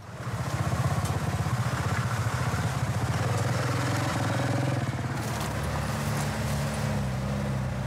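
An old cab-over truck's engine running steadily as the truck drives.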